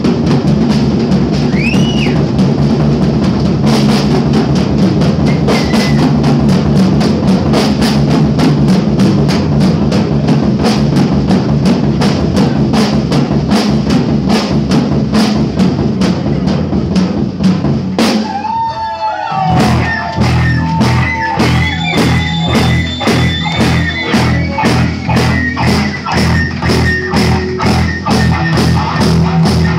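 Live rock drum solo on a full drum kit, fast and dense, over a low steady drone. About eighteen seconds in the drumming breaks off briefly, and the band comes back in with electric guitar playing bent notes over a steady drum beat.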